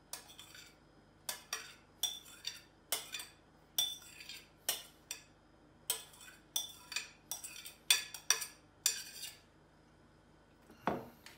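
Metal spoon clinking and scraping against a glass mixing bowl as salmon tartar is spooned out of it: a run of short, irregular clicks, about one or two a second, that stops about nine seconds in, then one more louder clink near the end.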